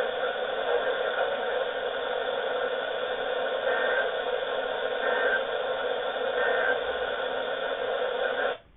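Steady radio static from a receiver with poor reception, with a faint tone showing through three times about a second and a half apart; it cuts off suddenly near the end.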